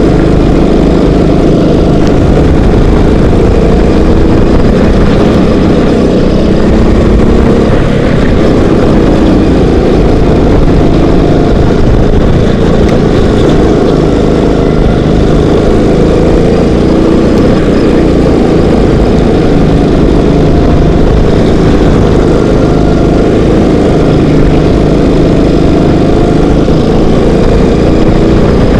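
Kart engine heard onboard from the driver's seat, running hard throughout, its pitch rising and falling as the throttle is worked through the corners.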